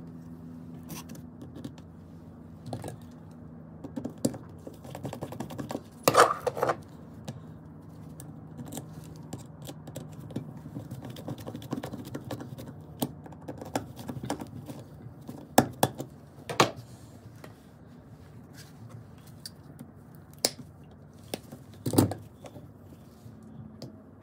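Screwdriver and gloved hands working the screw of a metal cord clamp on a circular saw's plastic handle housing: irregular small clicks and scrapes, with a few sharper knocks. A steady low hum runs underneath.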